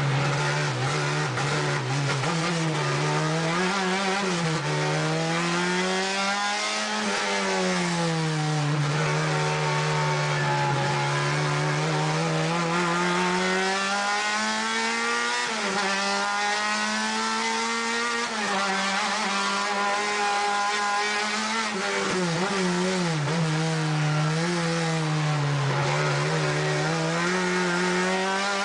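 Renault Clio 2 touring race car's engine at racing pace, heard from inside the cabin, its pitch repeatedly climbing under acceleration and dropping back on gear changes and braking.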